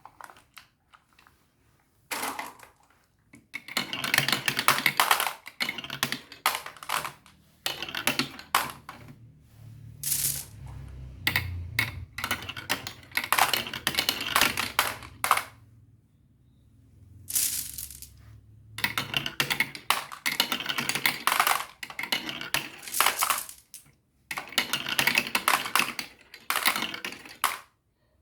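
Marbles rolling down a marble run, clicking and clattering in quick runs of small impacts with short pauses between, and a low rolling rumble in the middle.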